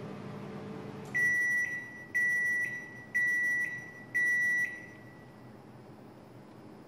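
Samsung MS23K3513AW microwave oven's running hum stops about a second in, then it beeps four times at one high pitch, each beep about half a second long and a second apart: the end-of-cooking signal.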